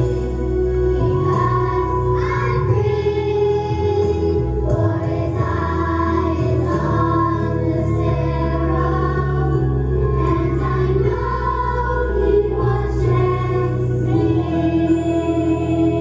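Chorus of children's and teenagers' voices singing a song with instrumental accompaniment, holding long notes over steady bass notes.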